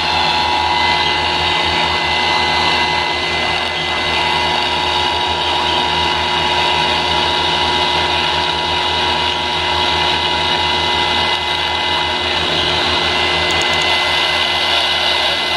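Loud steady static hiss from a radio receiver, with faint steady tones running under it, among them a two-note tone near 1 kHz that fades out about twelve seconds in.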